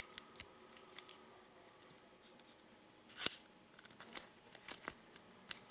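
Metal clicks from a Gerber sliding-plier multi-tool being worked open. There is one sharp snap about three seconds in, likely the plier head sliding out and locking, with several lighter clicks after it.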